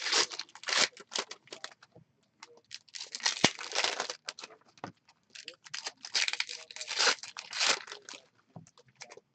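Plastic card-pack wrappers being crinkled and torn open, in several bursts of crackling with sharp clicks.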